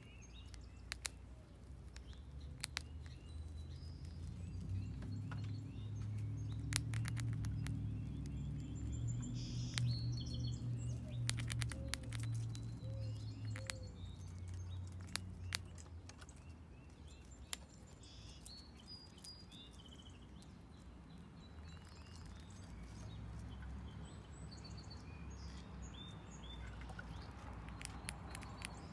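Gray squirrel gnawing dried corn kernels: irregular sharp crunching clicks. Small birds chirp now and then, and a low rumble swells and fades over the middle.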